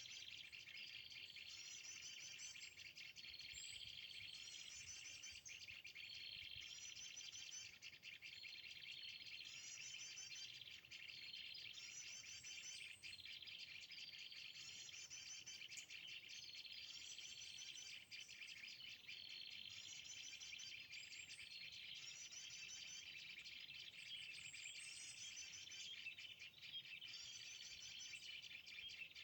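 A small bird's high trilling call, the same short phrase repeated at an even pace about every two seconds, typical of a looped lure call played through a phone speaker to draw birds to a glue trap. A steady insect chirring runs underneath.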